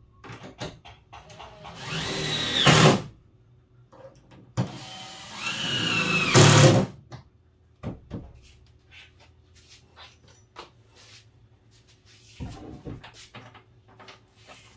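Cordless drill driving screws into a plywood countertop: two runs about two seconds long, a whine rising in pitch that ends each time in a short loud burst. Light clicks and knocks of the drill being handled and set down follow.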